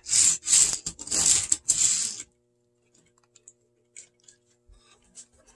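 Plastic model train cars rattling and clicking as they are pushed along the track and coupled, in four quick bursts over about two seconds. A faint steady hum and a few small clicks follow.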